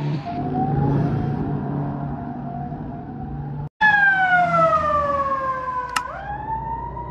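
Wailing emergency sirens on passing fire-brigade response vehicles over engine noise. About halfway through, after an abrupt cut, a louder siren slides down in pitch for about two seconds, then rises again and holds.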